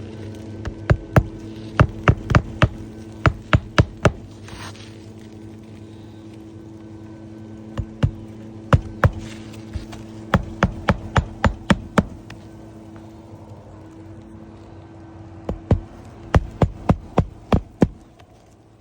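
Hammer driving roofing nails into a new three-tab asphalt shingle, in three runs of quick strikes, several blows to each nail. A steady low hum runs underneath.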